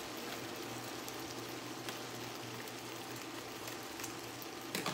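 Chopped okra and vegetables sizzling steadily in oil and butter in a pot, with a faint crackle. A couple of short sharp snips near the end as scissors cut open a paper packet.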